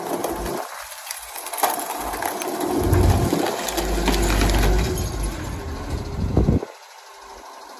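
Rear-loader garbage truck's engine and hydraulic compactor working, with a couple of sharp knocks in the first two seconds, then a loud steady rumble that builds for a few seconds and drops suddenly back to a low idle near the end.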